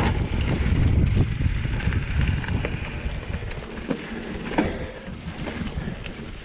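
Mountain bike rolling down a dirt singletrack, with wind rumbling on the microphone and a few sharp clicks and rattles from the bike. The wind rumble eases off about halfway through.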